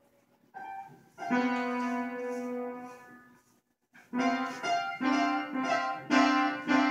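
Piano music: a first note, then a long held chord, a short pause, and steady notes struck about two a second.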